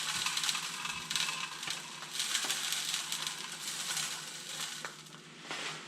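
Bird seed pouring and rattling into a plastic bird feeder's hopper, a dense patter of small grains that comes in two main pours.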